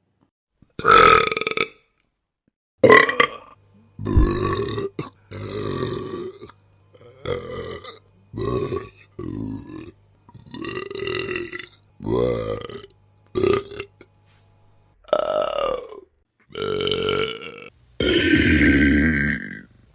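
A string of separate human burps, about a dozen in a row, each lasting about a second or less and varying in pitch. One longer burp comes near the end.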